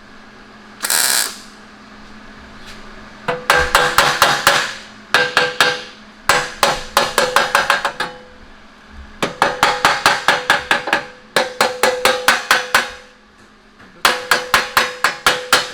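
A hammer rapidly striking metal in about six quick volleys of ringing blows, roughly eight strikes a second. There is a short hiss about a second in.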